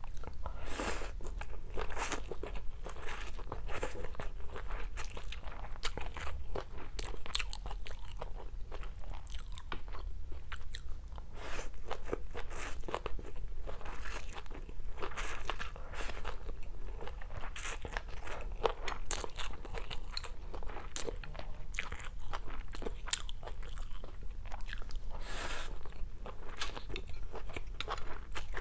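Close-miked chewing and slurping of stir-fried rice vermicelli with tofu, carrot and bean sprouts: a dense, irregular run of short wet mouth clicks and crunches.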